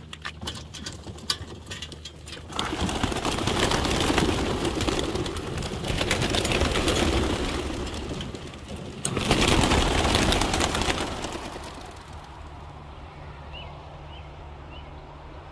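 A flock of racing pigeons released from a metal transport crate: a few seconds of clicks and rattles from the crate, then a loud rush of many wings flapping as the birds take off, in two surges. The flapping dies away after about twelve seconds, and a few short bird chirps come near the end.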